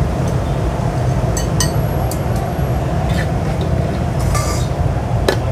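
Crisp fried garlic and hot oil poured from a metal pan into a stainless mesh strainer, with a few short clinks and rattles of metal on metal. Under it runs a steady low rumble.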